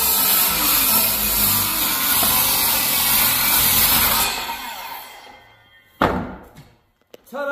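Ryobi circular saw cutting through a pine 2x4 bottom plate, the blade spinning down about four seconds in. A single sharp knock follows about six seconds in.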